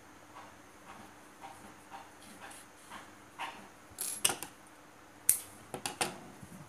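Hand handling of a crocheted toy, yarn and a sewing needle on a wooden table. Faint rustling is followed, from about four seconds in, by a few sharp clicks and taps as the needle and the toy are put down on the table.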